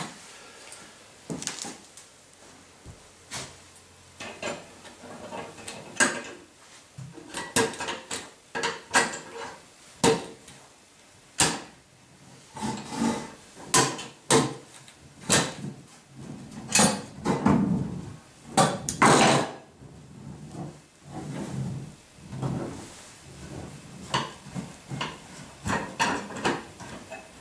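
Irregular wooden knocks and metal clicks from hands working a scissor jack fitted in a wooden worktable end frame, wood and metal parts knocking together, with a denser stretch of clatter a little past halfway.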